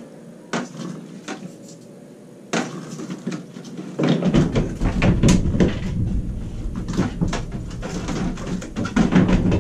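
Plastic RV roof vent trim ring (escutcheon plate) being fitted into the ceiling opening: light plastic clicks and knocks. About four seconds in, a louder low rumble of handling sets in, with many quick knocks.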